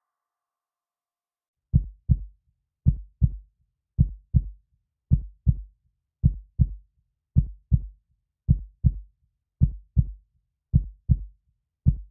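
Heartbeat sound effect: a slow, steady lub-dub, each beat a pair of deep thumps, a little under one beat a second. It begins after nearly two seconds of silence.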